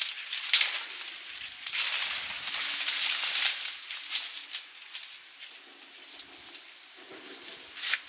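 Rustling and crackling with scattered sharp clicks, loudest in a longer stretch in the middle.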